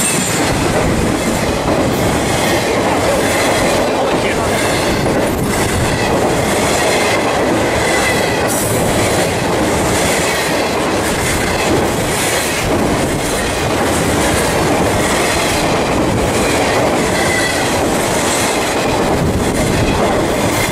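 Intermodal freight train of trailer-carrying flatcars passing close by at speed: a steady loud rumble and rush of steel wheels on rail, with continual clickety-clack of the wheels over rail joints.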